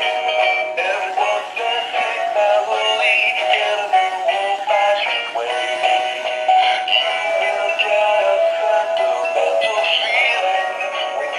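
Animated plush Christmas puppy playing a Christmas song with a sung vocal through its small built-in speaker while it dances, thin and with almost no bass.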